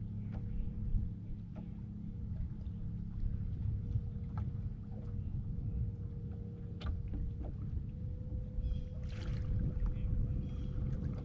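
Bass boat drifting on the water: a steady low rumble of water and wind against the hull, with a faint steady hum and a few light clicks, and a brief hiss about nine seconds in.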